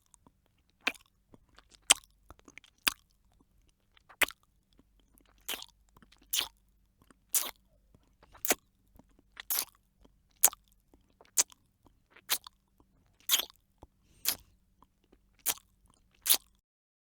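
A lollipop being licked: short mouth sounds on the candy, about one a second, some louder than others.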